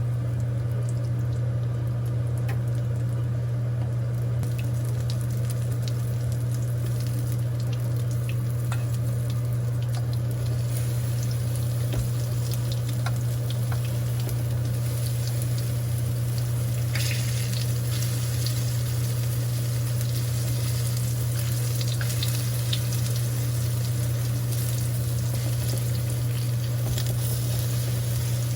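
Food frying and sizzling in a pan, the sizzle growing denser partway through, over a steady low hum.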